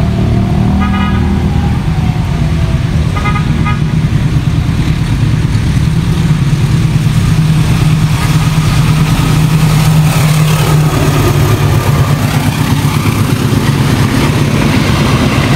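Diesel locomotive hauling passenger coaches past a level crossing, its engine giving a steady low drone. Two short horn toots come in the first few seconds, and the sound grows a little louder as the train passes, with a falling tone about ten seconds in.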